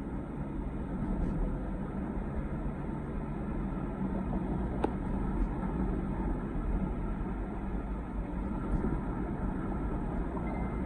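Car driving along, heard from inside the cabin: steady engine and road noise, with a single sharp click about five seconds in.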